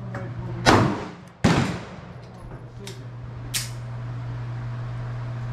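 Pistol gunshots: two loud shots about three-quarters of a second apart, about a second in, then a fainter shot near the middle. A steady low hum runs underneath.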